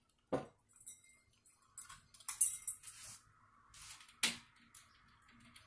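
A person moving about and handling things: scattered clatters and rustles, with the loudest sharp bursts about two and a half and four seconds in.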